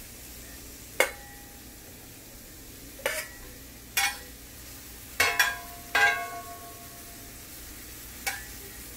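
Metal spatula and stainless steel bowl clinking against a cast-iron skillet as charred cherry tomatoes are picked out, about six sharp clinks, a few with a brief metallic ring, over a faint steady hiss.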